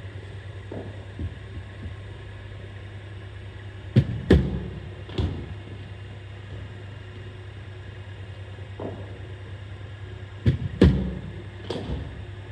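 Steady low hum of a cricket bowling machine running, with two deliveries about six seconds apart. Each delivery is heard as a quick pair of sharp knocks followed by a softer knock about a second later, as the ball is fired and played.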